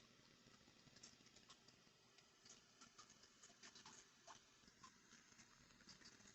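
Faint, irregular light clicks and taps from small items being handled during an unboxing.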